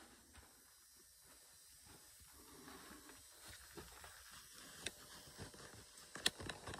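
Faint handling noise and footsteps of someone moving through a small room with a handheld camera, with a few sharp clicks, the loudest about six seconds in.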